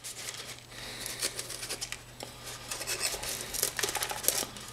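Fingers scratching and picking at the charred bottom of a hollow paper displacer: small irregular crackles and rubbing of paper and burnt carbon.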